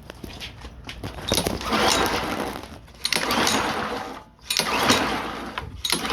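Honda pressure washer's small engine being pull-started: about four recoil-cord pulls, each a second or so of cranking whir, and it does not catch and run.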